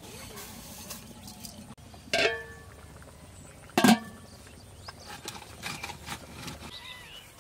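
Two sharp metallic clanks, about a second and a half apart, each ringing briefly.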